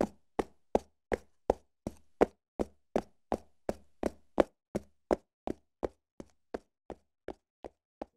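A steady series of sharp knocks or ticks, about three a second, evenly spaced, each with a short dull thud beneath; the last few are fainter.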